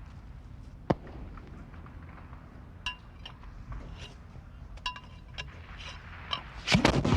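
Scattered metallic clinks and clicks of rifles being handled and loaded between volleys, with a sharp crack about a second in. Louder gunfire starts near the end.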